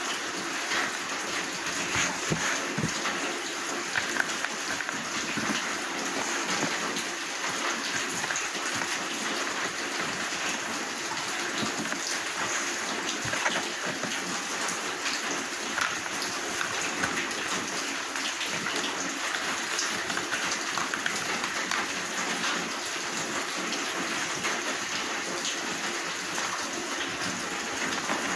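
Steady rain-like hiss with many small ticks and crackles scattered through it.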